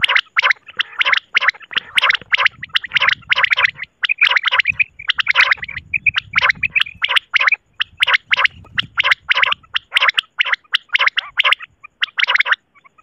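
Recorded common quail calls played as a hunting lure: a fast string of short, raspy notes, about four a second, broken by brief pauses.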